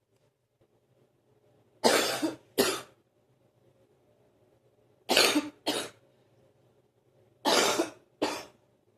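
A person's morning cough: three bouts of two coughs each, about every three seconds, the uploader's daily morning coughing up of phlegm that lasts about 45 minutes.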